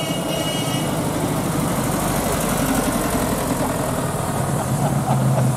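Volkswagen Beetle's air-cooled flat-four engine running at low speed as the car rolls slowly past. A deeper, steadier engine note from the next car grows louder near the end.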